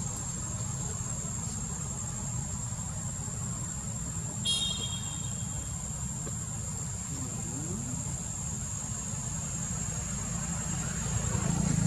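Steady low rumble of an engine running, growing louder near the end, under a thin, steady high-pitched whine; a brief high chirp or toot sounds once about four and a half seconds in.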